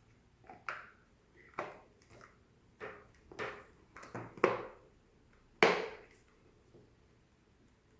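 Plastic hair dryer housing being handled and fitted shut: a string of about eight sharp clicks and knocks, the loudest about five and a half seconds in.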